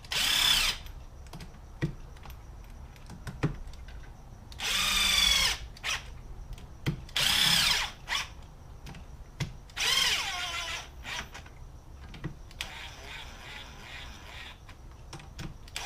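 Handheld power driver ('gun') running the clutch bolts down in a crisscross pattern on a Yamaha Raptor 700 engine. It runs in four separate bursts of about a second each, with the motor's pitch changing as each run ends, and a few light clicks of the tool and socket in between.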